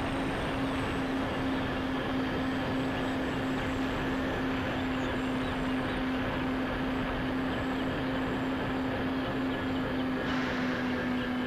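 Twin electric motors and propellers of a Dynam Skybus DC-3 RC model plane in flight, a steady low drone over rushing air noise, picked up by the plane's onboard camera.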